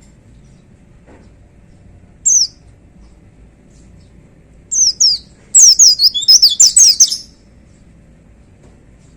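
White-eye (pleci) singing: a single high, quick downward-sliding note, then a pair of them, then a loud, rapid run of about ten such notes lasting about a second and a half.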